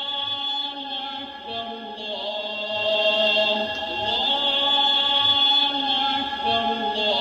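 Music playing from a cassette tape over speakers: held choir-like vocal chords with slow gliding pitches over a soft, steady low beat, leading into a hip hop track.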